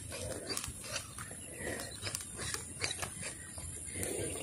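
Handling noise close to the microphone: irregular light clicks and rustling over a low rumble.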